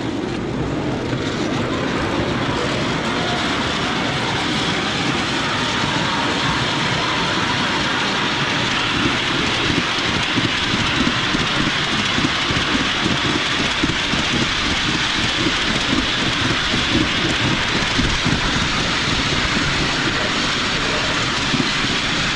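Miniature railway train running, a steady, dense rumble with fast rattling throughout.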